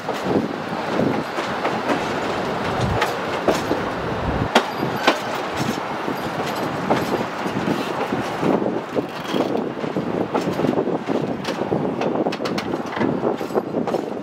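Durango & Silverton narrow-gauge passenger car rolling along the track, heard from its open rear platform: a steady rumble of wheels on rail with irregular clicks and clacks, and a couple of louder knocks about five seconds in.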